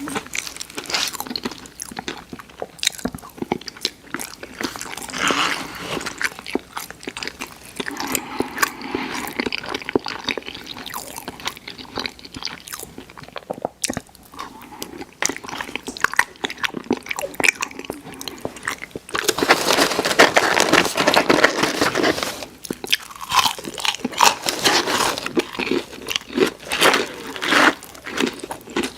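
Close-miked eating: biting into and chewing crunchy fried food, a dense run of wet crackles and crunches, loudest for a few seconds about two-thirds of the way through.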